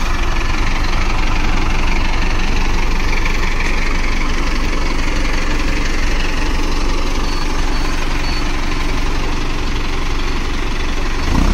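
Mahindra tractor's diesel engine running steadily with a dense, pulsing low rumble, getting louder just before the end.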